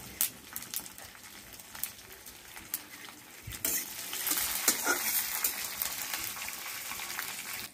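Mustard seeds, green chillies and curry leaves frying in hot oil in a kadhai: the tempering sizzling and crackling, with a metal spatula stirring and clicking against the pan. The sizzle grows louder about halfway through.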